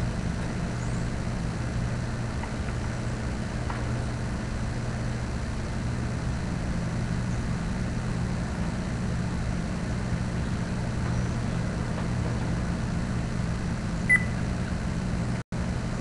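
A steady low hum with no change in pitch. A brief sharp sound comes about fourteen seconds in, and the sound cuts out for an instant just before the end.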